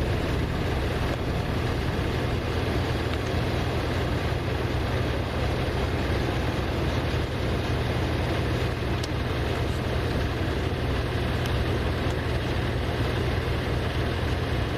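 Heavy diesel engine running steadily: a low, even rumble with no change in pitch or level.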